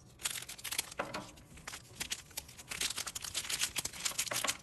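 Foil wrapper of a Pokémon 151 booster pack crinkling as it is snipped open with scissors and the cards are slid out, a quick run of sharp crackles.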